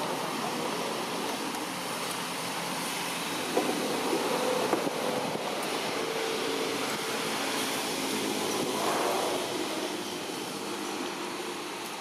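Steady background noise with a low engine hum that slowly falls in pitch between about four and ten seconds in.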